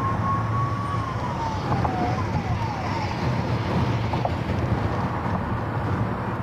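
Steady road and wind rumble of a 2022 Maruti Suzuki Brezza driving at highway speed. Over it, a thin whistling tone rises for about a second, then falls, and a few short falling chirps follow.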